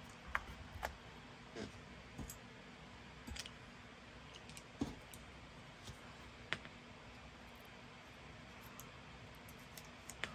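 Sparse, irregular light clicks and taps from small chipboard and paper craft pieces being handled, about ten over the stretch, over faint room tone.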